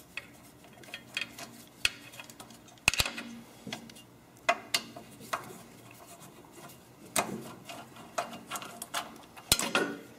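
Hand Torx screwdriver backing the screws out of a snow blower engine's carburetor intake manifold: scattered light metallic clicks and clinks of the bit and loosened screws, with a few sharper clinks spread through.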